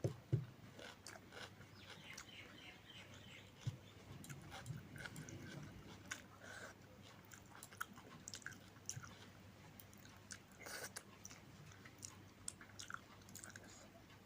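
A person chewing food close to the microphone: soft wet mouth clicks and smacks at an uneven pace, with a louder click right at the start.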